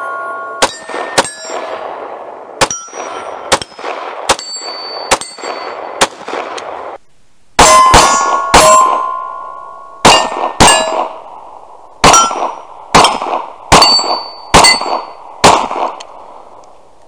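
CZ P10C 9mm pistol firing a slow, steady string of about fifteen shots, roughly one a second, with a brief pause near the middle. Many shots carry a short metallic ring after the report.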